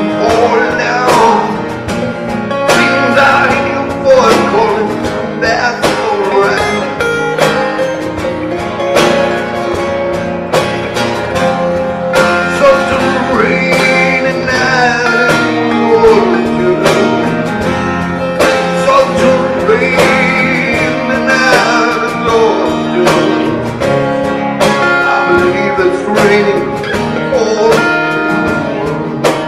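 Live band playing a slow song, led by guitar, with a melody that bends in pitch over a steady drum beat.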